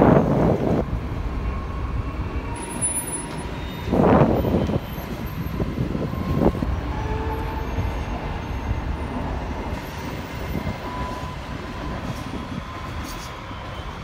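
Sapsan (Siemens Velaro RUS, EVS1) high-speed electric train passing at speed: a steady rush of rolling noise with louder swells at the start and about four seconds in, fading away toward the end.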